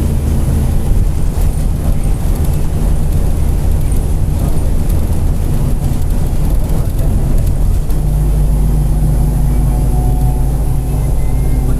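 Mercedes-Benz OF-1721 BlueTec 5 bus under way, its diesel engine and drivetrain running steadily with a loud low drone and the growl of its differential. About eight seconds in the note drops to a deeper drone and a steady whine-like tone joins it.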